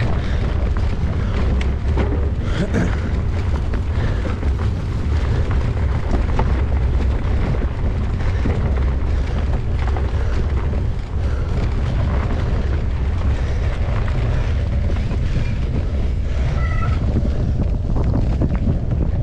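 Heavy wind rumble on the microphone of a mountain biker's camera while riding, with scattered short clicks and knocks over it.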